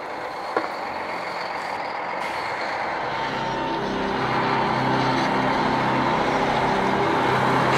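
Heavy dump truck's diesel engine approaching, growing steadily louder, with its low engine note coming up clearly about three seconds in.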